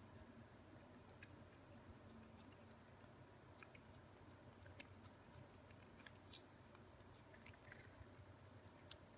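Ragdoll cat licking paste treat from a squeeze tube: faint, irregular wet clicks and smacks of tongue and mouth, several a second.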